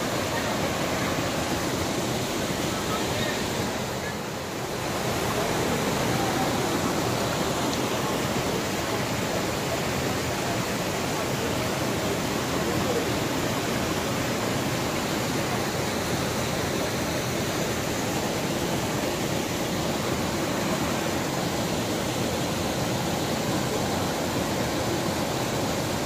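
Steady rush of the Dudh Dhara waterfall, a small fall of about 10 m on the Narmada river, water pouring over rock. The noise dips briefly about four seconds in.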